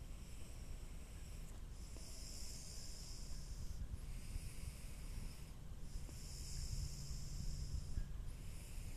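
A person breathing close to a phone's microphone: faint hissing breaths every couple of seconds over a low rumble.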